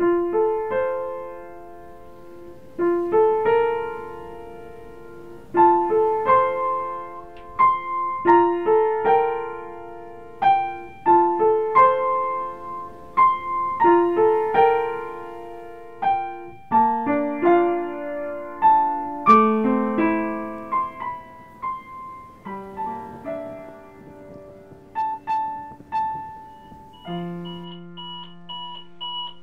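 Piano music: a slow melody of single notes, each struck and left to ring out. About two seconds before the end an alarm clock starts beeping in quick pulses.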